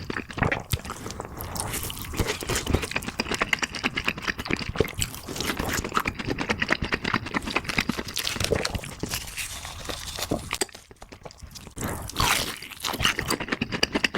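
Close-miked mouth sounds of someone eating: irregular crunching and chewing with many small wet clicks, easing off briefly about eleven seconds in.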